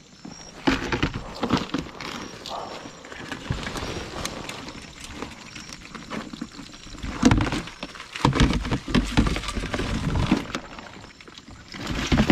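Live blue crabs and a landing net clattering against a plastic tub as the crabs are shaken and picked out of the mesh: irregular clicks, knocks and scrabbling, busiest from about seven to ten seconds in.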